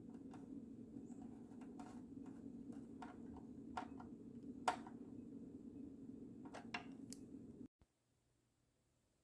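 Scattered light clicks and taps of parts and tools being handled over a steady low hum, with one sharper tap about halfway through. Everything cuts off abruptly near the end, leaving near silence.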